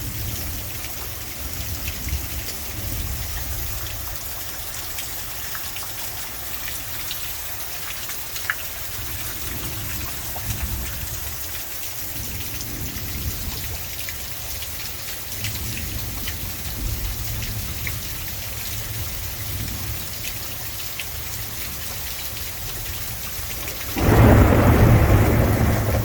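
Heavy rain pouring down in a steady hiss, with low thunder rumbling under it. A loud crack of thunder breaks out about two seconds before the end.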